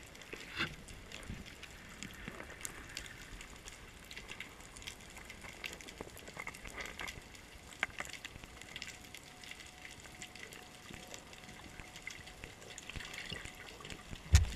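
Underwater sound heard through a camera housing: a faint steady hiss with scattered small clicks and ticks, then one sharp, loud knock near the end.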